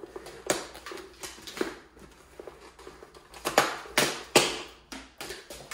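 Plastic sheet and foam being pulled out of a motorcycle helmet with an axe lodged in it, giving a string of sharp crackles and snaps, loudest about three and a half to four and a half seconds in.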